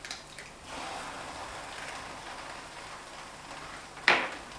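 Egg poured onto the batter in a hot oiled electric pancake pan, sizzling steadily after a few faint clicks of the shell coming apart. A single sharp knock near the end as the emptied shell is put down by a small ceramic bowl.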